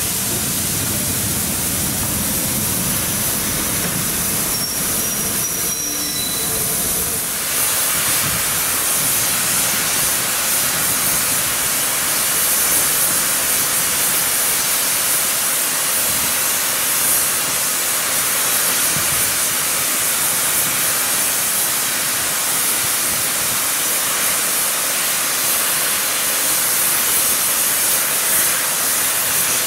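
Steam locomotive 35018 'British India Line', a rebuilt Merchant Navy class Pacific, hissing loudly and steadily as steam escapes from its cylinder drain cocks and from the safety valves blowing off. For the first seven seconds a low rumble from the moving engine runs under the hiss; after that the hiss alone holds steady.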